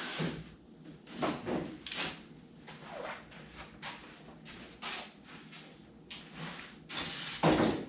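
An irregular series of short scrapes and knocks, about a dozen, the loudest near the end, from handling and fitting foam boat parts by hand.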